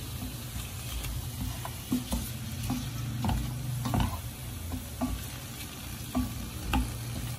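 A wooden spatula stirring and tossing chicken pieces in a frying pan, scraping and knocking against the pan about twice a second over a steady sizzle of frying.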